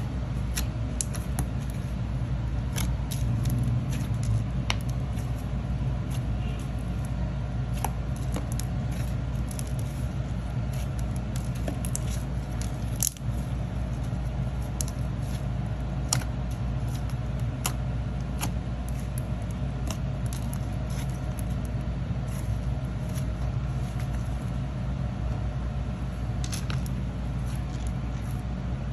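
Slime being kneaded, stretched and pressed by hand, giving many small irregular clicks and pops. A steady low hum runs underneath.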